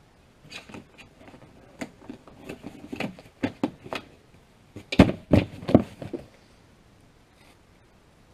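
Tissue paper rustling and a cardboard box being handled, with a run of clicks and a few sharp knocks about five seconds in.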